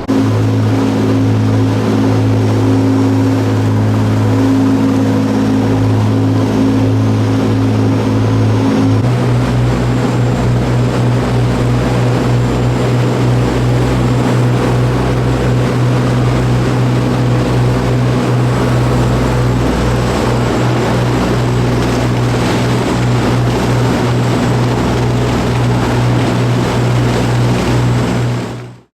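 Fishing boat's engine running under way with a steady low drone. Its pitch steps up slightly about nine seconds in, and the sound fades out at the very end.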